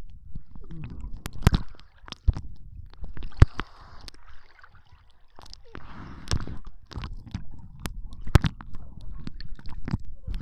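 Sea water sloshing and gurgling around a hand-held waterproof camera as it dips in and out of the surface, with many sharp clicks and knocks from fingers handling the camera.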